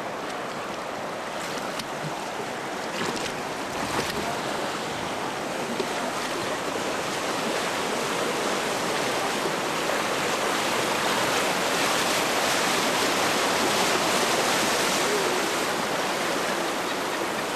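Rushing river water in rapids around a raft, a steady rush that grows gradually louder through the first two thirds.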